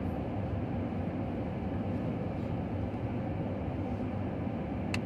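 Steady low rumble of a moving vehicle, with a single sharp click near the end.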